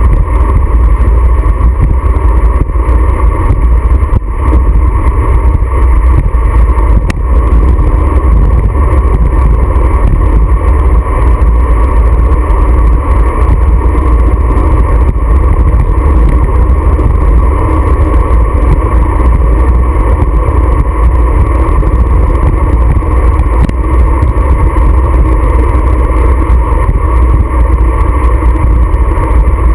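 Wind buffeting a bike-mounted GoPro's microphone while riding a road bike at speed: a loud, steady, low rumble with no breaks.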